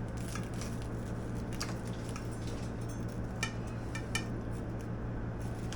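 Large kitchen knife cutting a quesadilla on a plate, the blade clicking and tapping against the plate several times at irregular intervals, over a steady low hum.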